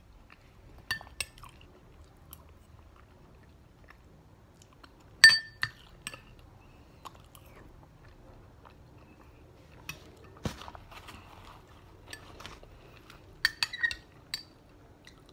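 Metal spoon clinking against a glass bowl a few times, each clink ringing briefly. The loudest comes about five seconds in, and a quick cluster falls near the end. Soft chewing of spoonfuls of sweetened mung bean snack comes in between.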